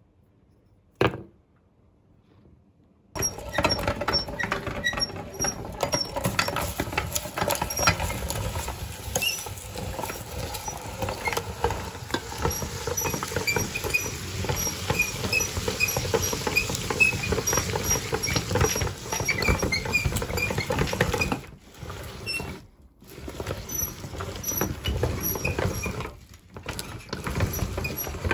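Meat grinder working ice cream through, a dense crackling and squishing full of small clicks. It starts about three seconds in after a single knock, and breaks off briefly twice near the end.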